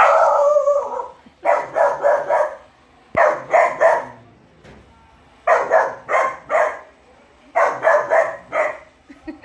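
Young Labrador puppy barking in rapid runs of three or four barks with short pauses between, opening with one longer drawn-out bark. It is alarm barking at a person at the gate.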